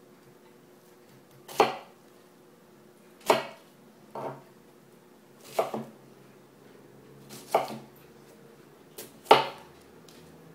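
Chef's knife chopping onion on a plastic cutting board: about six separate strokes, one every second or two.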